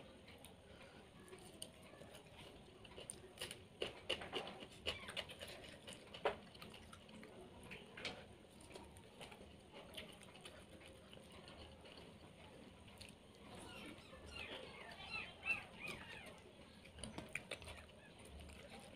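Faint chewing and lip smacks from a person eating fried fish by hand, with scattered small clicks and crackles, a little busier a few seconds in and again near the end.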